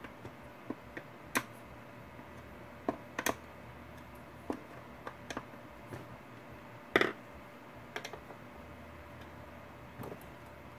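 Irregular light clicks and taps of a screwdriver and fingers working at the top panel of a handmade wooden ghost box, with one louder knock about seven seconds in.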